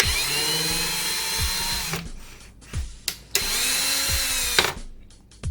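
TOTAL P20S 20 V cordless drill's motor running in two bursts, about two seconds and then about a second and a half, whining up to speed and winding down each time, backing a screw out.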